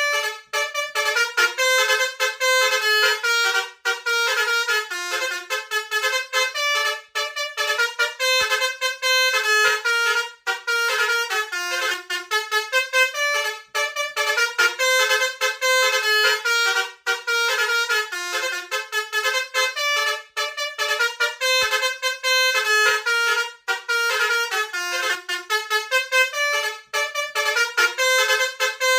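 A bus's multi-trumpet 'telolet' basuri horn playing a fast tune of short notes, the same phrase repeating about every three seconds.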